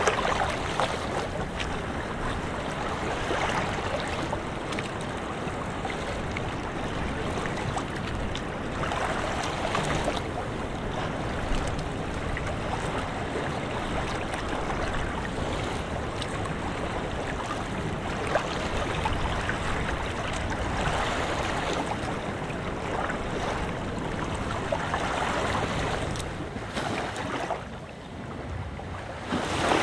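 Mediterranean surf: waves breaking and washing up the beach in a constant rush that swells every few seconds, with wind blowing across the microphone.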